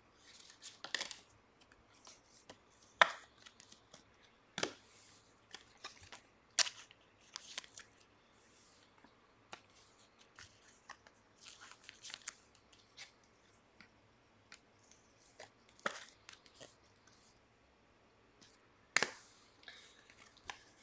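Trading cards and their packaging being handled on a table: scattered sharp clicks and taps over soft rustling, the loudest snaps about three seconds in and again near the end.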